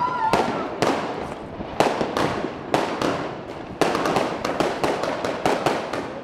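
Fireworks and firecrackers going off in a city street: an irregular string of sharp, loud bangs, each echoing off the buildings. The bangs come thicker and faster about four seconds in.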